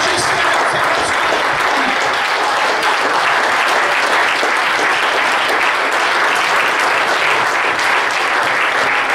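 A congregation of a few dozen people applauding steadily.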